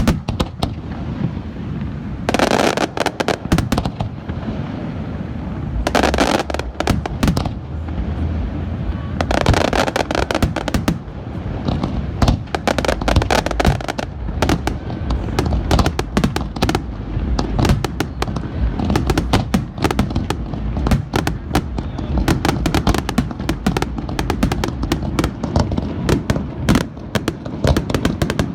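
Fireworks display: aerial shells bursting over a steady low rumble, with bursts of crackling every few seconds, then a dense, rapid barrage of reports for the second half.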